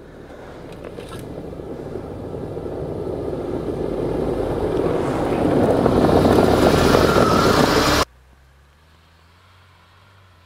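UAZ Patriot 4x4 driving through deep snow and passing right over, its engine and tyres growing steadily louder to a peak as it goes overhead. The sound cuts off abruptly about eight seconds in, leaving only a faint low hum.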